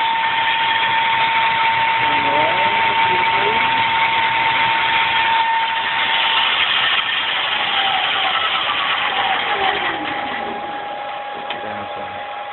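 Denford Viceroy 250 lathe running under an ABB ACS150 inverter, a steady machine noise with a clear whine. About seven seconds in, a tone glides down and the whine settles slightly lower, and the running eases off, as the inverter's output frequency is turned down.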